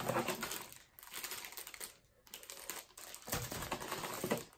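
Packing material rustling and crinkling as hands dig through an open cardboard shipping box, in several bursts with short pauses.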